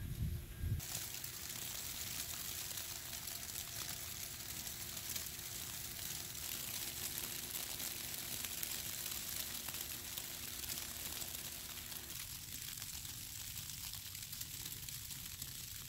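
Steady hiss of heavy wet snow falling.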